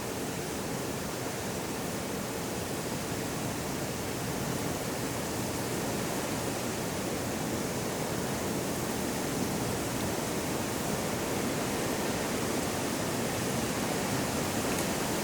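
Open hillside ambience: a steady, even rushing noise with no distinct events, swelling slightly.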